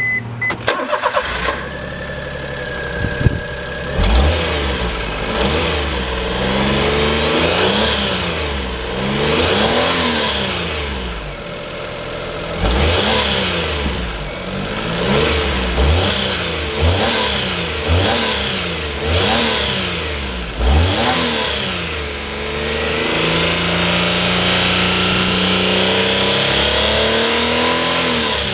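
Early-type Daihatsu EF-SE three-cylinder engine from a Hijet S200V running with a known abnormal noise. It is blipped up and down about a dozen times in quick succession, then held at a raised, slowly rising speed near the end.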